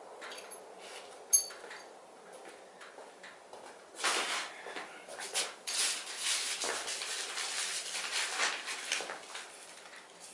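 A single sharp metallic tink about a second in. Then, from a few seconds in, a stretch of close, irregular rustling and handling noise.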